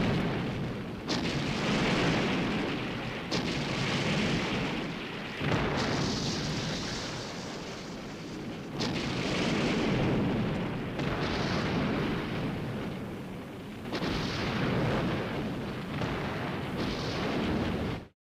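A series of explosion sound effects: about eight blasts, each starting suddenly and fading over a second or two, breaking off abruptly near the end.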